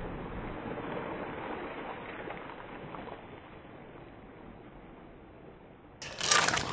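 Sea water churning and fizzing as the foam from a thrown crab pot's splash settles, fading slowly. About six seconds in, louder rustling and knocks begin abruptly.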